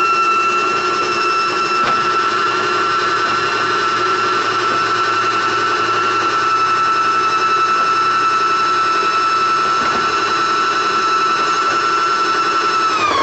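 Electric winch motor on a shingle lift running steadily under power with a high, even whine. Right at the end the pitch sags and it shuts off.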